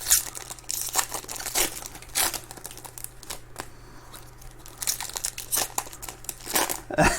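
Trading-card pack wrappers being torn open and crinkled by hand, in quick irregular rustles.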